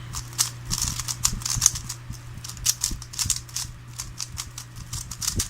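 A 3x3 Rubik's cube being turned rapidly in a speedsolve: quick, irregular clusters of plastic clicks and clacks as the layers snap around.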